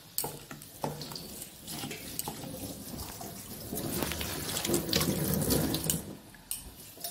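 Water from a kitchen tap running and splashing into a stainless-steel sink, building up about halfway through and easing off near the end, with a few clicks and knocks before it.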